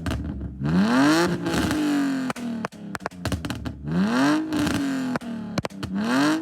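Stage 2 BMW E46 328i straight-six engine blipped three times, each rev rising quickly and falling slowly back to idle, with sharp pops and crackles between the blips.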